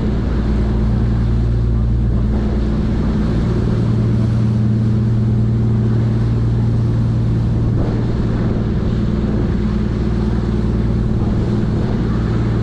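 Sightseeing ship Wonder Naruto's engines running at cruising speed, a steady low drone, over the rush of the propeller wake churning behind the stern.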